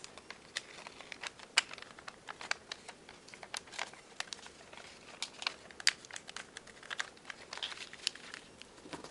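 A sheet of origami paper being folded and creased by hand into a mountain fold, with irregular crisp crackles and rustles as the paper layers are bent and pressed flat.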